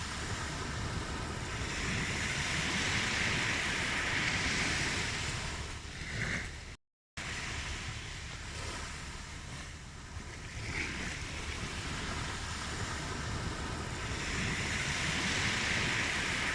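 Ocean waves washing ashore, swelling and receding in two slow surges. The sound cuts out completely for a split second about seven seconds in.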